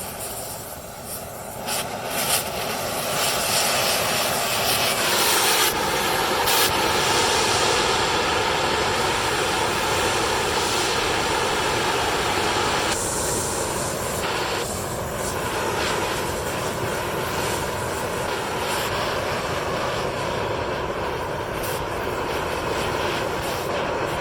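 Steady, loud machine noise with a strong hiss, its pitch dropping slightly about five seconds in.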